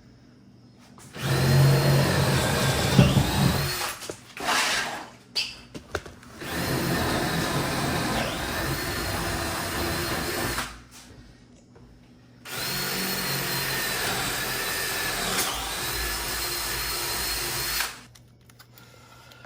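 Power drill running in three long runs, its motor whine dipping in pitch under load near the end of each: boring through wall framing to run electrical wire. A few short knocks fall between the first and second runs.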